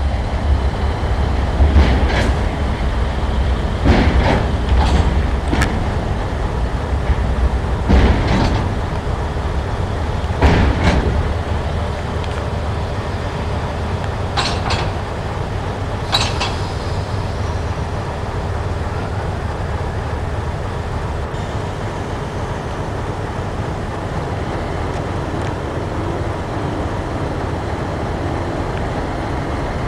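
Model railway turntable rotating: a steady motor hum with scattered sharp clicks and clunks through the first half, then an even hum.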